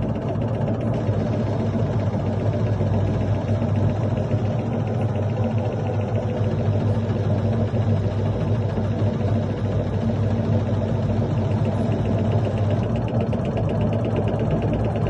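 LG washing machine running with a continuous rattling clatter over a steady low hum, the fault the machine was brought in for.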